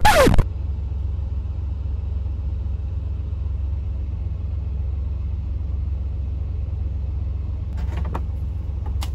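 Semi-truck's engine idling, a steady low rumble heard inside the sleeper cab, with a few light clicks near the end.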